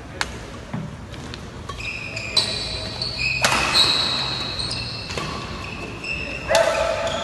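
Badminton rally: several sharp racket strikes on the shuttlecock and sneakers squeaking on the court floor as the players move, echoing in a large hall. The longest squeaks come about halfway through and near the end.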